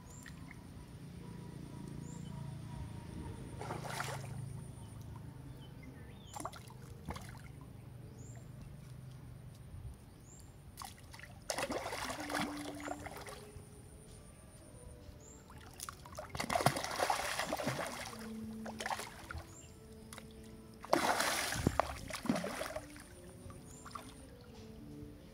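Fish splashing at the surface of a pond close to the bank: a few small splashes, then three louder bursts of churning water about halfway, around two-thirds of the way and near the end, with quiet sloshing between.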